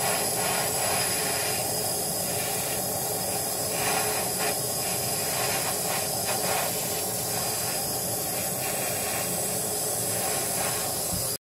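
Steady hissing noise that cuts off abruptly near the end.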